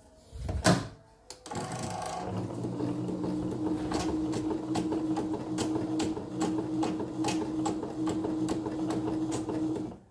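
A knock about a second in, then a CNY portable computerized embroidery machine stitching: a steady motor hum with regular needle ticks, stopping abruptly near the end. It is running normally.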